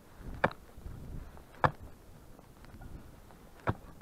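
A wooden-handled staff jabbed down into deep snow three times, each strike a sharp knock, with snow crunching and shifting between strikes.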